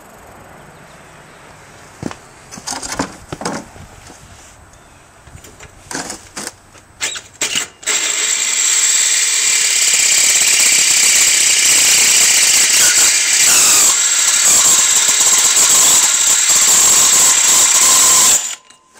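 Electric drill driving a 1½-inch (38 mm) hole saw into the metal baffle of a Yamaha Virago 1100's stock muffler, cutting the baffle out: a loud, steady, high screech of the saw teeth on metal starts about eight seconds in and stops shortly before the end. Before it come scattered knocks and clicks.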